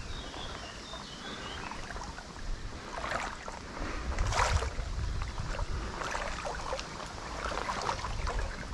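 Shallow river water sloshing and splashing as someone wades toward the bank, with a few louder splashes along the way.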